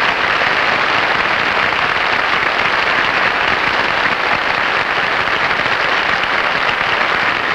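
Television studio audience applauding, loud and steady.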